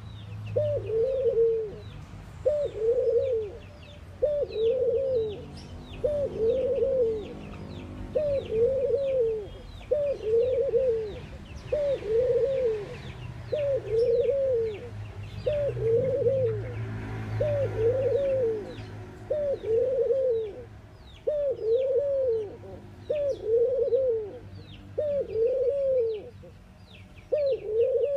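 A collared dove cooing over and over, about one coo every second and a quarter. Each coo is a short call that rises and then falls in pitch. Thin, high chirps from small birds run behind it.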